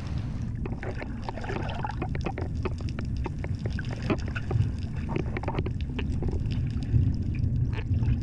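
Underwater sound picked up by a camera in its housing in the sea: a steady, muffled low rumble of moving water with scattered sharp clicks and crackles throughout.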